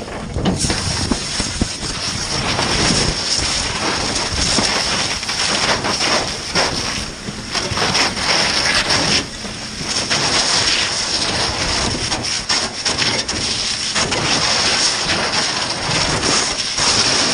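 Fire hose nozzle spraying water onto burning debris, a steady loud rushing hiss that starts about half a second in, with steam boiling off the flames.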